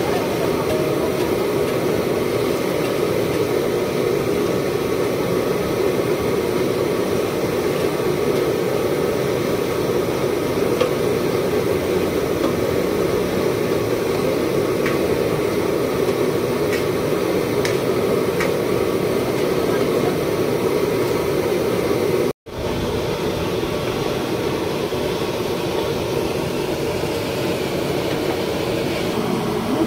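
Steady, even machine-like running noise with no rhythm or change, broken once by a split-second gap about two-thirds of the way through.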